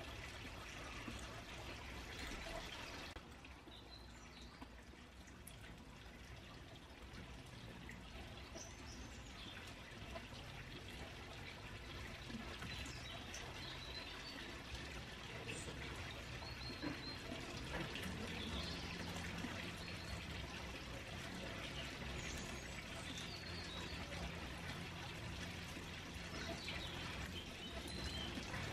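Pond water trickling steadily, with occasional short bird chirps.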